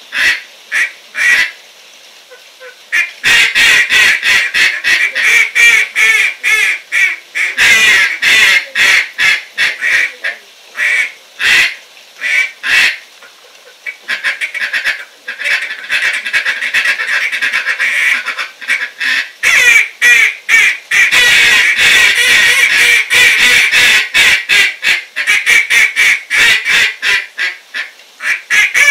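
Two hand-blown duck calls played together: strings of short, loud quacks, with longer stretches of rapid chattering notes in the second half.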